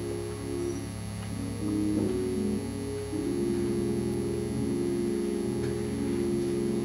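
Soft background music of sustained keyboard chords, the chord changing about two seconds in and again about three seconds in.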